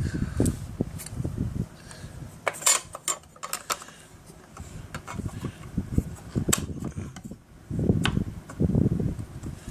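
Clicks, scrapes and light knocks of a Torx screwdriver and small metal parts as screws are driven back into an upright vacuum's front wheel assembly, with a cluster of sharp metallic clicks about three seconds in.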